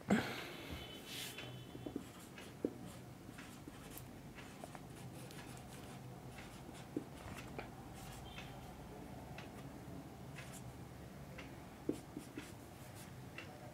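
Marker pen scratching across a whiteboard as words are written, in many short, faint strokes with light taps, and a brief high squeak near the start.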